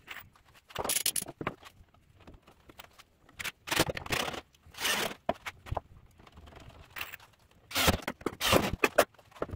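Yellow DeWalt-style cordless drill driving screws into a pine 2x4 frame, in several short bursts of grinding, scraping noise.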